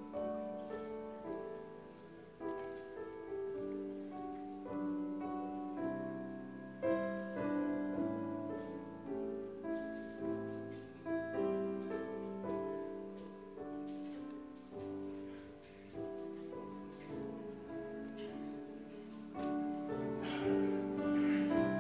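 Slow, quiet keyboard music: held notes and chords that change about every second, with a brief noise near the end.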